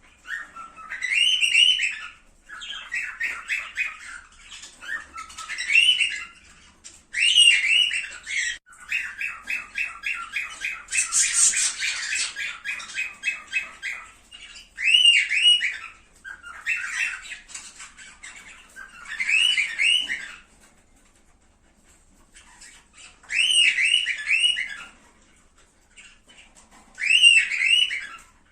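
Cockatiels calling: phrases of rapid chattering chirps and rising-and-falling whistled squawks, repeated with short gaps and a couple of longer pauses near the end.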